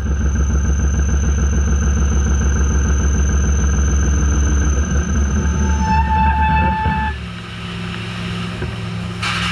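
CNC lathe taking a roughing cut in Waspaloy with a carbide turning insert: a steady, loud machining hum with a high whine. About seven seconds in the sound changes abruptly and drops to a quieter steady hum. The insert broke on this cut, run at too high a cutting speed.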